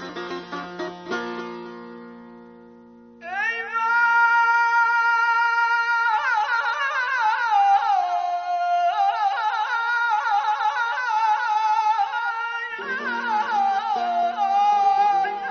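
Persian classical avaz singing with plucked string accompaniment. A few plucked notes, then about three seconds in the voice enters on a long held note and moves into fast, wavering vocal ornaments; plucked notes come back under the voice near the end.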